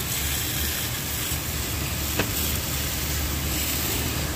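Pressure-washer jet spraying water onto a metal engine crankshaft: a steady hiss of spray over a low, steady hum, with a single sharp click about two seconds in.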